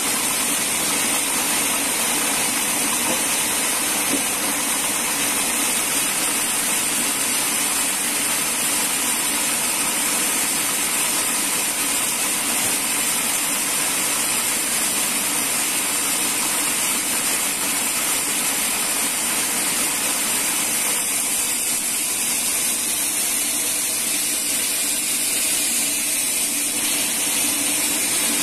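Band sawmill machinery running steadily, an even hiss and hum that stays the same throughout without rising or falling.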